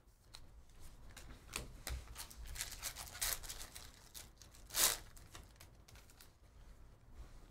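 A foil trading-card pack crinkling and tearing as it is ripped open by hand, in a run of short rips with the loudest about five seconds in.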